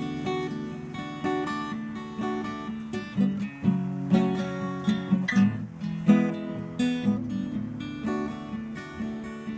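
Acoustic guitar strummed in a steady rhythm, chords ringing, in an instrumental break between sung verses.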